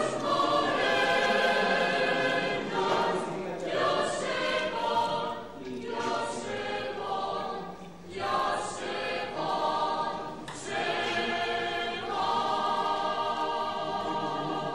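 A choir singing in long held phrases, with short breaks between them every two seconds or so.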